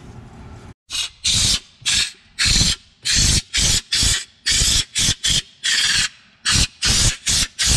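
Compressed-air underbody coating (schutz) gun spraying textured bedliner-type coating into a car's wheel well, triggered in a quick series of short hissing blasts, each a fraction of a second long.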